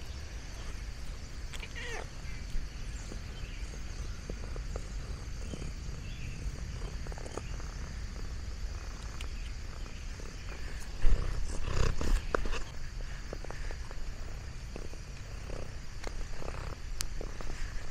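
Domestic cat purring steadily, picked up close by a microphone on its collar while it is petted. About eleven seconds in there is a loud rubbing scuff on the microphone.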